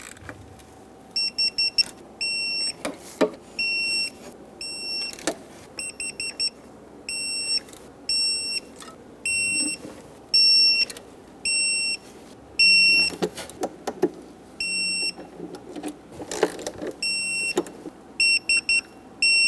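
Digital torque wrench beeping as timing cover bolts are tightened to 3.7 ft-lb. Each bolt brings a run of short quick beeps ending in a longer beep as the setting is reached, over and over, with clicks and knocks from the wrench in between.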